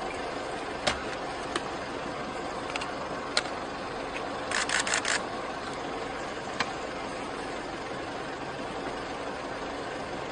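Steady running of an idling car engine, with a few sharp clicks and a quick run of four louder crackling bursts about halfway through.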